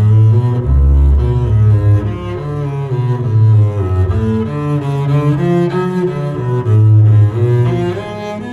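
Double bass played with a bow: a melody of held notes that changes every half second or so, with a deep low note about a second in.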